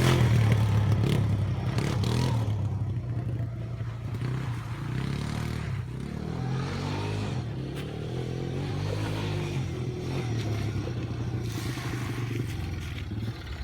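Quad bike engine running at a steady low pitch, getting quieter over the first few seconds, then holding level, with a few brief knocks and clatter.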